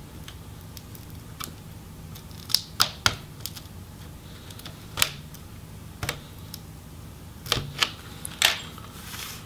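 Sharp plastic clicks and snaps from a Lenovo ThinkPad T470's display bezel being pried away from the LCD back cover with a thin tool and fingertips. The clicks come about eight times, irregularly, from a few seconds in to near the end, over a faint low hum.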